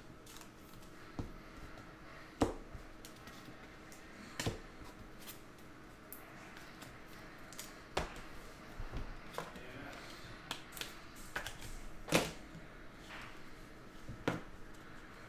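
Trading cards being handled and flipped through by hand: scattered sharp clicks and taps a second or more apart, with the strongest about two and a half and twelve seconds in.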